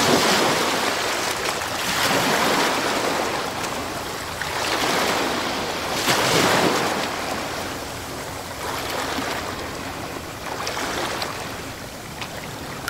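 Sea surf washing onto a beach: a steady rush of water that swells and recedes every two to three seconds and grows fainter toward the end.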